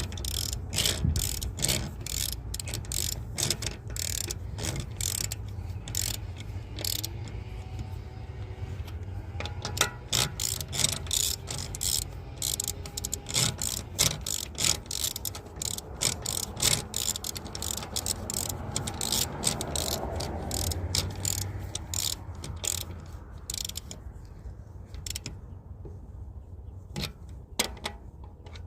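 Hand ratchet wrench clicking in quick runs as lug nuts are run down and snugged onto the wheel studs; the clicking thins out near the end.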